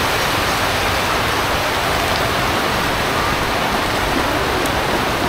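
Heavy rain pouring down: a loud, steady hiss of falling water.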